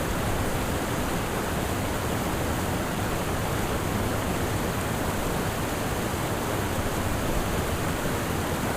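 Steady rush of river water pouring over rapids, an even continuous roar of moving water.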